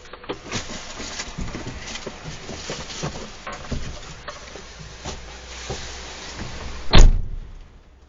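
Rustling and small knocks over a steady outdoor noise, then a vehicle door slammed shut hard about seven seconds in, after which the outside noise cuts off almost completely.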